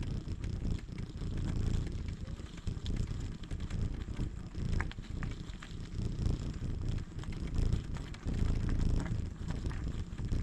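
Bicycle riding up a rough forest road: an uneven low rumble of tyres rolling over the surface and wind on the microphone.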